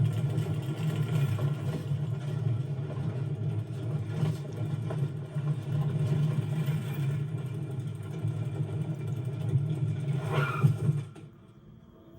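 Animated swarm of grasshoppers flying, their wings making a loud, steady engine-like drone that cuts off about a second before the end.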